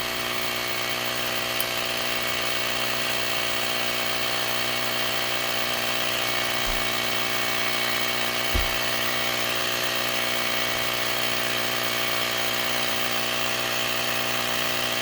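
Portable battery-powered tire inflator's small electric compressor running steadily while pumping up a flat four-wheeler tire. A single soft knock about eight and a half seconds in.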